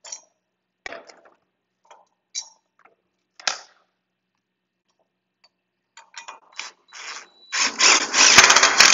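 Cordless drill boring into a steel bracket: a few short clicks and brief trigger blips, then from about seven and a half seconds in the drill runs steadily under load.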